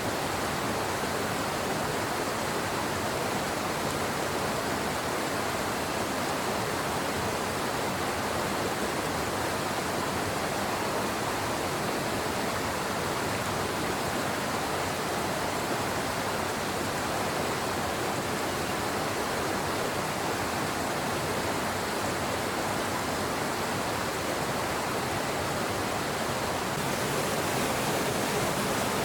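Steady rush of water flowing in a stream or spilling over a small dam, a little louder near the end.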